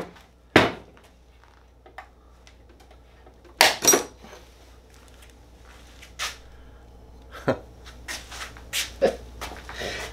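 Scattered knocks and clicks of a cordless angle grinder and loose parts being set down and handled on a wooden workbench, with a run of lighter clicks from about eight seconds in.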